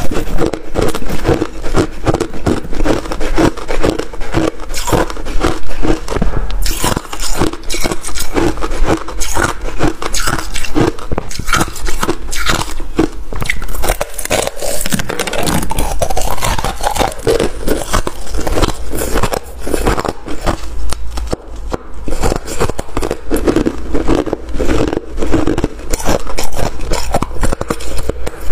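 Freezer frost ice being bitten and chewed: a loud, dense, continuous run of crisp crunches.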